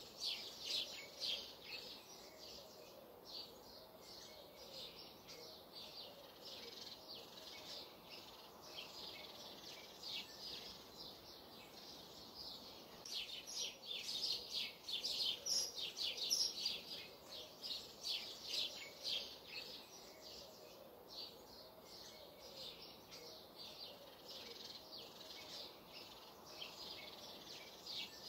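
Songbirds chirping and singing, a dense chorus of short high calls over a faint steady hiss, busiest about halfway through.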